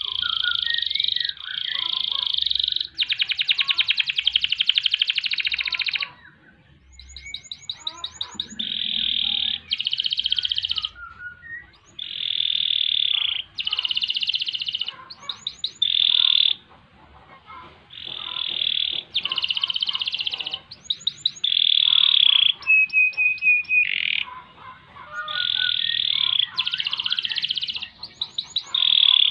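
Domestic canary singing a long, continuous song. It moves between rapid rolling trills and quick runs of sharp, repeated high notes, in phrases of one to three seconds with short breaks between them.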